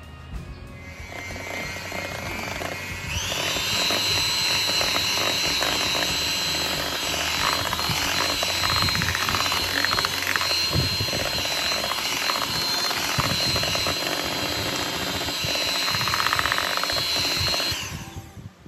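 Electric hand mixer running steadily at speed with a high whine, its beaters churning cheesecake batter in a stainless steel bowl. It starts about three seconds in and cuts off shortly before the end.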